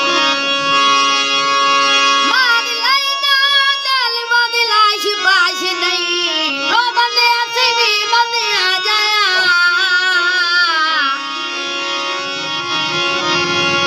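A harmonium played with a boy singing over it: the harmonium's chords sound alone at first, the boy's voice comes in about two seconds in with a wavering, bending melody, and it drops out about eleven seconds in while the harmonium carries on.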